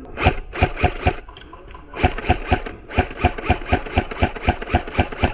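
An airsoft gun firing rapid single shots: four in the first second, a short pause, then a steady string of about four shots a second.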